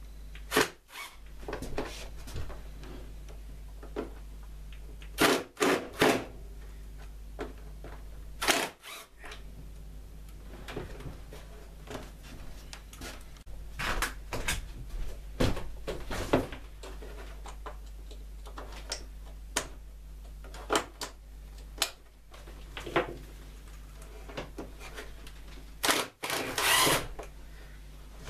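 Cordless impact driver run in short bursts, several times over with pauses between, hammering out old rusted screws; the longest burst comes near the end.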